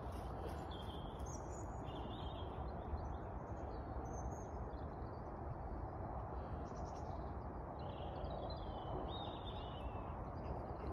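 Outdoor ambience: a steady background hiss and rumble with small birds chirping now and then.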